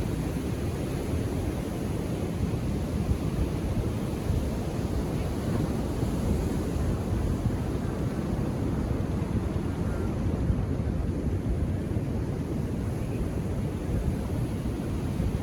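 Ocean surf on a beach, heard as a steady low rush with no separate wave crashes standing out.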